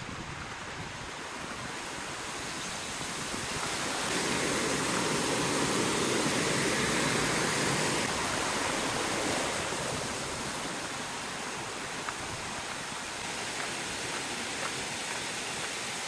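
Rushing water of a mountain stream, a steady wash that swells for several seconds in the middle and then eases back.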